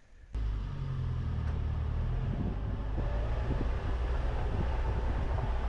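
Mitsubishi L300 Delica 4WD van driving slowly along a rough gravel track, its engine and tyres making a steady low rumble. The sound cuts in suddenly about a third of a second in.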